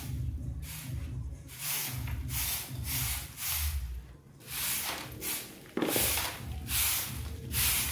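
Straw broom sweeping dirt across a rough concrete floor in brisk swishing strokes, about ten in all, a little faster than one a second.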